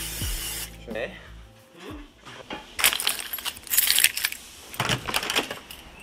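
A bunch of keys jingling in a hand, in several short bursts, after a steady hiss that cuts off suddenly in the first second.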